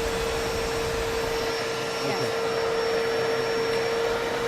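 Sippon BJC2021 steam vacuum cleaner running in combined steam-and-vacuum mode: a steady motor whine over rushing suction air.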